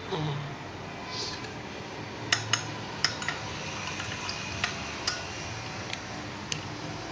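A spoon clinking irregularly against the side of a container, about eight sharp taps from two seconds in, as honey is stirred and dissolved into a liquid syrup.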